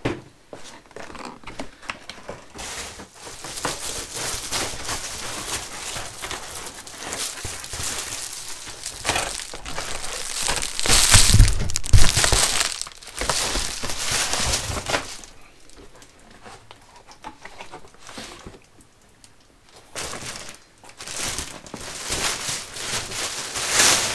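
Handling noise from an Alfa Romeo 159's plastic door card being lifted and moved about: scraping and rustling of the panel and its foam-lined back. It is loudest about halfway through, with a couple of heavy knocks, quieter for a few seconds after that, then rises again to a sharp knock near the end.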